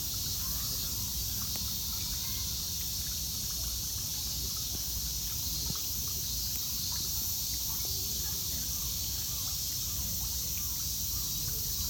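Steady outdoor ambience: a continuous high-pitched insect drone over a low rumble, with faint short calls scattered through it.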